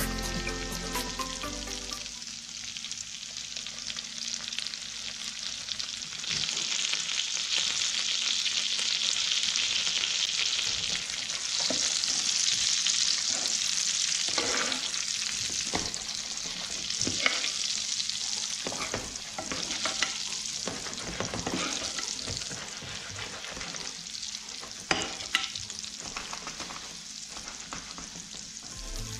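Lemon caper sauce sizzling in a nonstick frying pan around a tuna steak, louder for several seconds early on. From about halfway through, a metal spoon clinks and scrapes against the pan in many short strokes as the sauce is basted over the fish.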